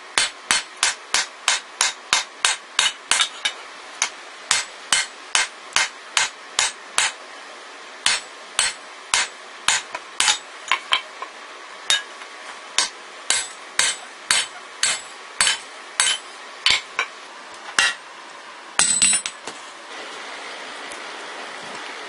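Hand hammer blows on a hot steel hammer head on the anvil, forging a cross peen hammer from a jackhammer bit. The ringing strikes come about three a second at first and slow to about two a second, then stop. A brief louder clatter follows, then a steady hiss.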